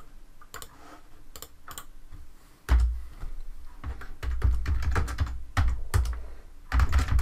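Typing on a computer keyboard: a quick run of separate key clicks, which become much louder and heavier, with low thuds, from about three seconds in.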